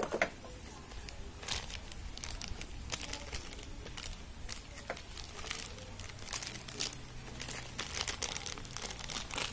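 Thin clear plastic bag crinkling in irregular crackles as gloved hands work a new tail-light bulb out of it.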